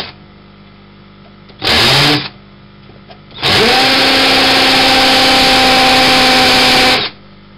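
Electric drill boring into a MOSFET's package on a circuit board: a short blip, then a second brief spin-up. About three and a half seconds in it settles into a steady run with a whine that rises and then holds one pitch, before stopping suddenly.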